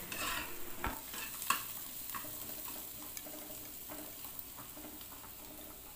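A flat metal spatula stirs and scrapes chopped onion, green chillies and ground spices around a shallow pan of hot oil, with a faint sizzle. Short, irregular scrapes and clicks of the spatula against the pan are strongest in the first second or so and ease off later.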